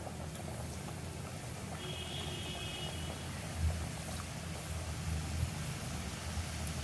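Samosas deep-frying in hot oil in a cast-iron kadai: steady sizzling and bubbling that grows fuller in the second half as more samosas go in. The oil is hot enough to fry.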